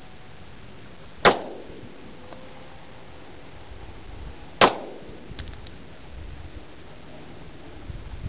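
Two 10mm Auto pistol shots from a Glock 20 SF, about three and a half seconds apart, each with a short ringing tail. A third shot comes right at the end.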